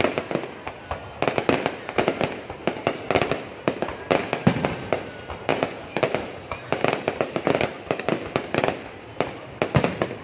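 Fireworks going off: a dense string of sharp bangs and pops in clusters, with short lulls between.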